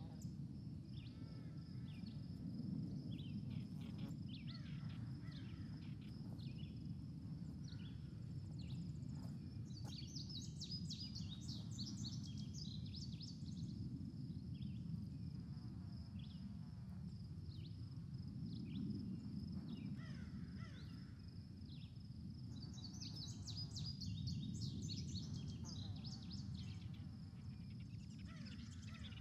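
Yard ambience: songbirds chirping, in two busy flurries of rapid calls, over a steady high-pitched hum and a low background rumble.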